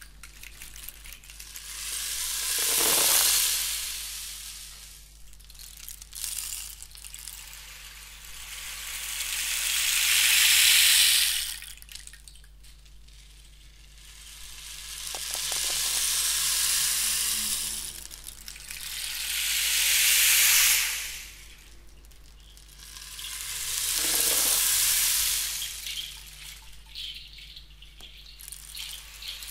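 Gong played in a slow wash: five swells of hiss-like sound, each building and dying away over a few seconds.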